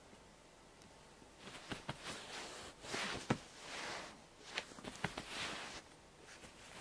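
Faint rustling of a duvet as a puppy shifts on it, in soft swells with a few small clicks.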